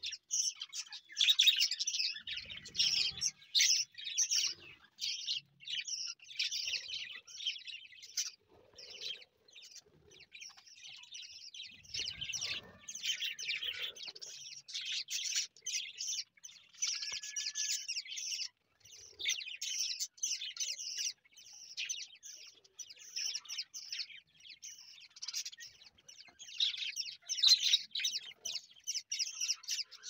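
A flock of budgerigars chattering: a dense, continuous warble of fast high chirps and twitters in bursts with brief gaps.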